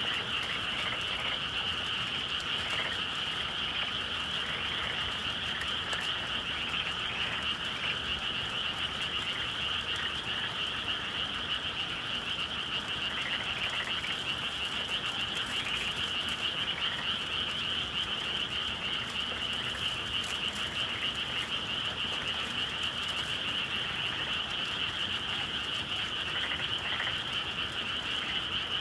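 Dense chorus of many frogs calling at once, an unbroken high-pitched trilling mass with no pauses.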